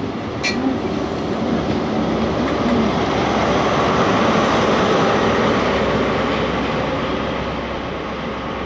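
A train passing by, its rumble building to a peak about halfway through and then fading, with one sharp click about half a second in.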